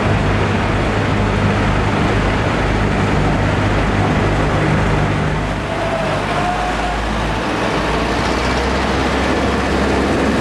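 Diesel engines of a combine harvester and a farm tractor towing a trailer, running steadily at low speed as they drive past. Their low hum shifts in pitch about eight seconds in as the tractor comes closer.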